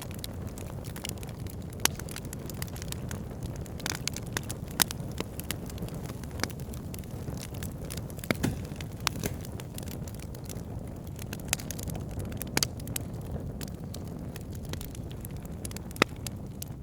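Wood fire crackling in a fireplace: a steady low rumble of flames with irregular sharp pops and snaps throughout, a few of them much louder than the rest.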